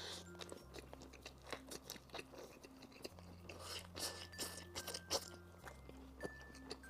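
Garlic fried chicken being bitten and chewed, with many irregular crunches of its fried coating.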